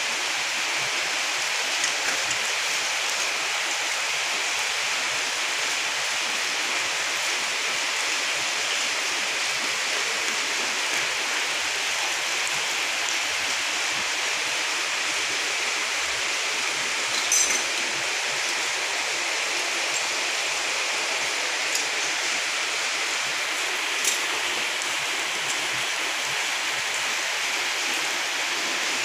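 Komatsu 6D95 diesel engine running steadily on a test run, heard as an even, loud rushing noise with no clear beat. A couple of short sharp ticks sound about 17 and 24 seconds in.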